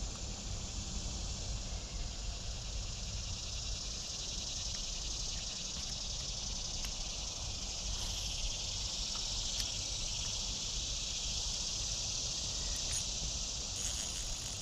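Steady, high-pitched chorus of summer insects buzzing without a break.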